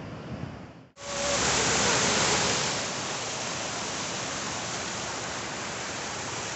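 Steady, even rushing noise that starts abruptly about a second in, loudest for its first couple of seconds and then settling.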